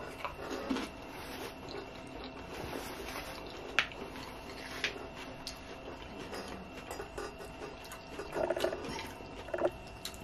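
Close-up eating sounds: chewing a mouthful of cheese- and sour-cream-covered tortilla chips, with wet mouth sounds and a few sharp clicks. Two short hums from the eater near the end.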